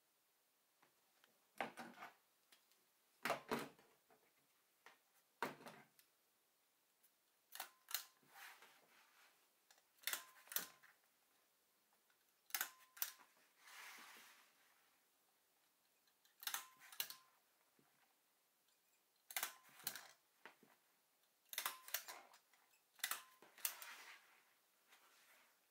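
Hand stapler driving staples along the edge of a sheet of upholstery material: a sharp clack, often doubled, about every two seconds. A short rustle of the sheet being shifted comes about halfway through.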